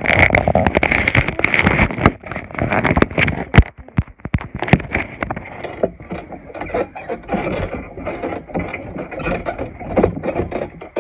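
Handling noise and wind buffeting on a phone's microphone as it is carried while bouncing on a trampoline: a continuous rustling and scraping broken by many irregular knocks.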